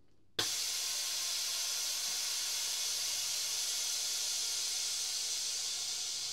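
TurboVac S40 chamber vacuum sealer venting: air hisses back into the evacuated chamber, returning it to atmospheric pressure at the end of the vacuum cycle. The hiss starts suddenly about half a second in, holds steady and begins to fade near the end.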